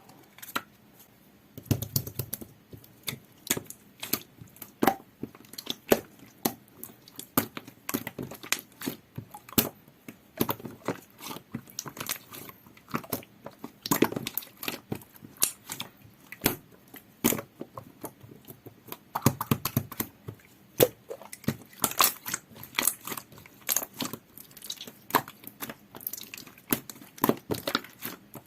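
Clear glitter slime with a jelly texture being squeezed, poked and stretched by hand, making a dense, irregular run of small sticky pops and clicks, several a second.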